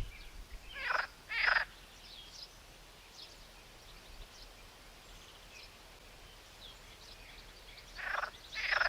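Short animal calls: two about half a second apart about a second in, and two more near the end, over a faint steady hiss.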